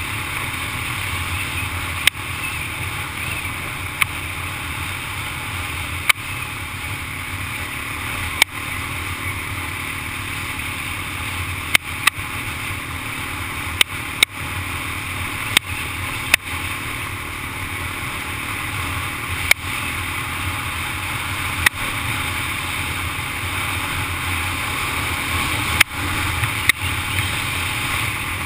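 Big Honda ATV engine running steadily while riding, a continuous engine drone mixed with wind-like noise. About a dozen sharp clicks cut in at irregular intervals of one to four seconds.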